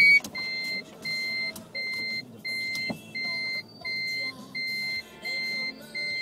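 An electronic beeper sounding a steady run of identical high beeps, each about half a second long, about one and a half beeps a second.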